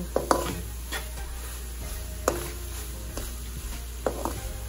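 Spoon stirring squid and coconut paste in a cooking pan, with a few sharp knocks against the pan as the paste is worked through.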